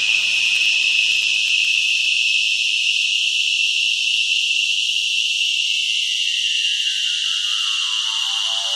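Synthesized dark-ambient drone: a steady, shrill high whine like a loud insect chorus, with a lower layer of stacked tones that fades away and then sweeps back in, falling steadily in pitch over the last few seconds.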